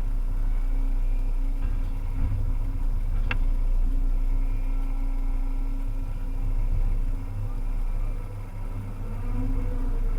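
Volvo EC300E excavator's diesel engine running steadily while working, with a single sharp click about three seconds in.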